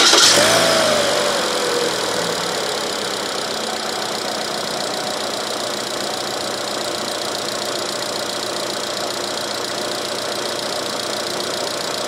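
Chevrolet Cruze 1.8 L Ecotec four-cylinder engine just after starting: its revs fall back over the first two seconds, then it idles steadily. It is running on all four cylinders with no misfires, after a dead ignition coil on cylinder one was replaced.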